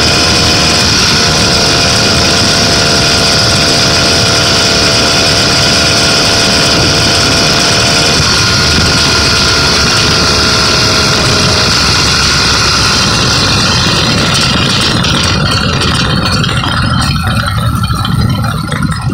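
Small engine of a motorized bicycle running steadily under way, with the loudness dropping off near the end as it eases off.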